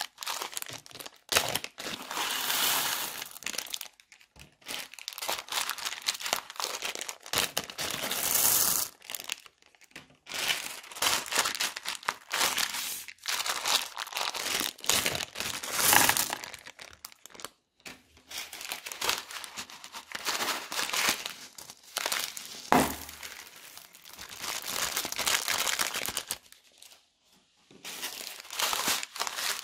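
Thin plastic zip-lock bags crinkling in irregular bursts as they are squeezed and opened, with small plastic beads rattling inside them and clicking as they spill out onto the slime.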